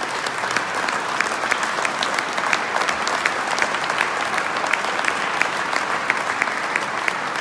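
Audience applauding: dense, steady clapping from many hands at the end of a choir performance.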